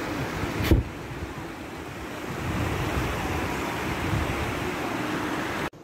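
Steady rushing noise, with a single knock about three-quarters of a second in; the sound cuts off abruptly near the end.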